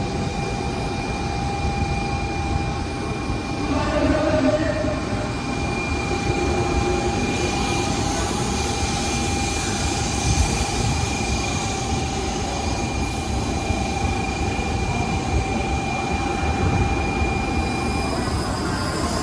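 Shinkansen train at a station platform: continuous rushing rail noise with a steady electrical whine held on two pitches that stops near the end, and a brighter hiss building partway through.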